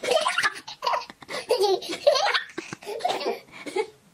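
A baby laughing in a run of short bursts with brief pauses between them.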